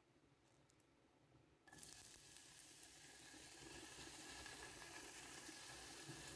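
Chopped red onion frying in olive oil in a stainless steel pot: a steady sizzle that starts suddenly about two seconds in.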